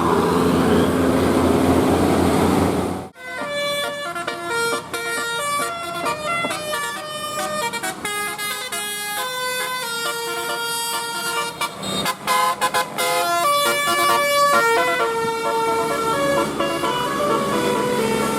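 Bus telolet horn, a multi-trumpet musical air horn, playing a quick tune of short stepped notes, often several at once. Before it, for about the first three seconds, a bus engine runs under a noisy background, then cuts off abruptly.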